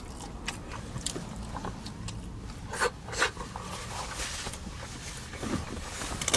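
Close-miked chewing and lip-smacking on a sushi burrito, with scattered wet clicks. A louder rustle of a paper wrapper comes around three seconds in, over a low steady hum.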